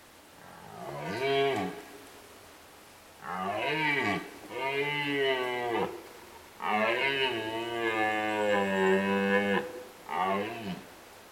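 Red deer stag roaring in the rut: a series of five deep roars, the longest held for about three seconds, the last one short.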